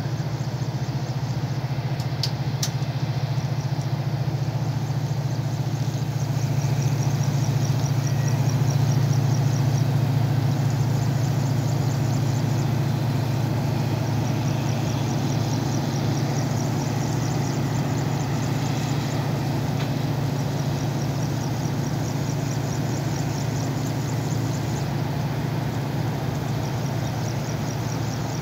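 Steady low drone of a diesel engine idling on a standing passenger train, swelling slightly a few seconds in.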